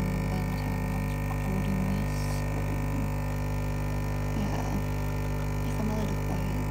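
Single-serve coffee machine's pump humming steadily as it pours coffee into the cup.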